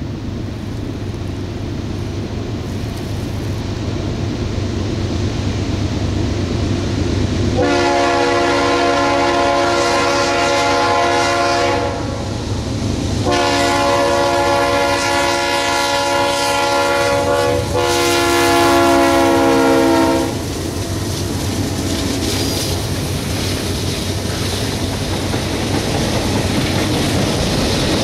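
Freight locomotive's multi-note air horn sounding for a road crossing: one long blast, a short pause, then a longer blast with a brief break near its end. It plays over the steadily rising rumble of the approaching train. After the horn stops, the train rolls past with a clickety-clack of wheels on the rail.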